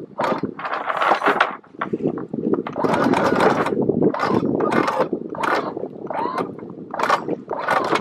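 Anchor windlass hauling in chain in short, irregular spurts, making a weird strained sound because the chain is under too much tension after snagging on something on the bottom.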